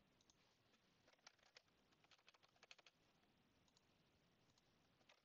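Near silence with a handful of faint, quick computer clicks about one to three seconds in.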